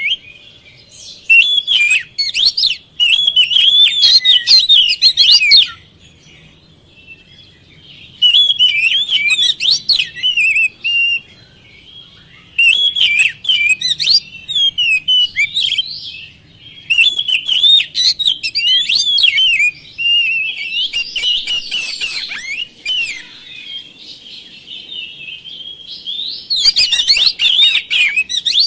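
Oriental magpie-robin (kacer) singing: loud bouts of rapid, varied whistles and chattering phrases, each a few seconds long, with short pauses between them.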